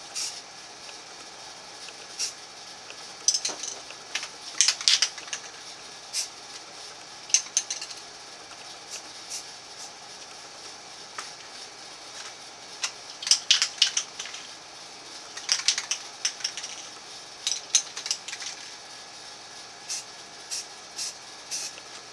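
Aerosol spray paint can giving short, repeated hissing bursts, sometimes several in quick succession, as camo paint is misted through a stencil onto a rifle receiver, with a few light clicks between them.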